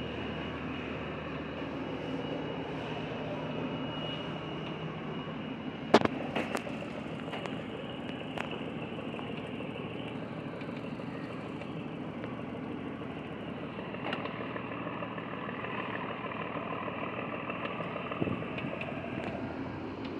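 Houseboat's engine running steadily as the boat cruises. There is a sharp knock about six seconds in, followed by a few lighter clicks.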